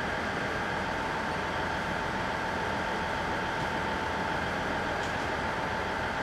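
Steady hum of stationary electric trains standing at a covered station platform, with a constant high-pitched whine over an even background noise and no change throughout.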